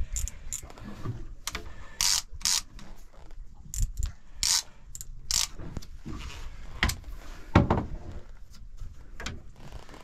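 Boat rod's fishing reel clicking in short, irregular ratchet bursts, each lasting a fraction of a second.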